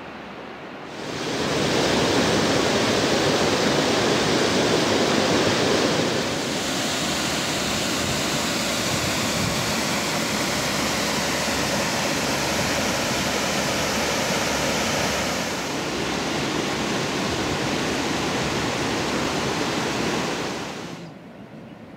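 Alpine waterfall cascading over boulders: a steady rush of water that comes in about a second in, eases slightly twice, and fades out shortly before the end.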